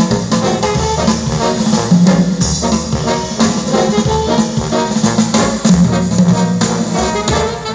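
Instrumental music with a repeating bass line and drums, played back loud through a pair of Bose 101 MMG speakers.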